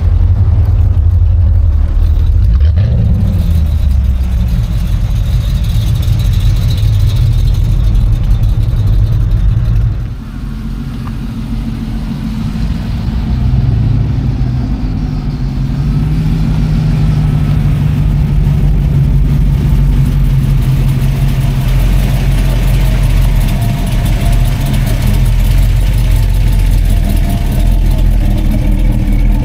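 Engines of classic muscle cars and hot rods driving slowly past one after another, with some revving. The sound dips briefly about ten seconds in, then a steady, deep engine note holds to the end.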